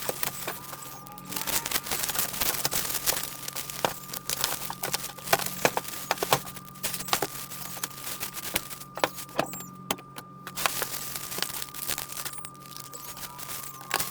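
Packing paper and plastic wrap crinkling and rustling as they are pulled off a boxed motorcycle hitch, with many small crackles, over a faint steady hum.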